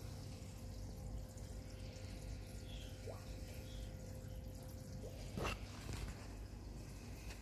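Reef aquarium water circulating: faint trickling and dripping water over a steady low hum, with one sharper drip about five and a half seconds in.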